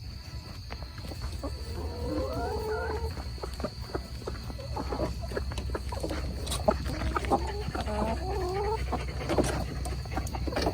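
Hens clucking in two bouts of wavering calls, about two seconds in and again around seven to nine seconds, over many short sharp crackles and a steady low hum.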